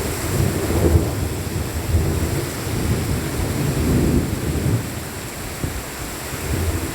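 Steady rain falling with thunder rumbling low underneath, swelling about a second in and again around four seconds, then easing off.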